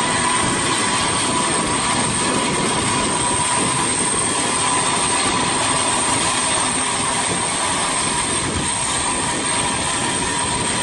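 Aircraft turbine running steadily: a loud, even rush with a constant high whine.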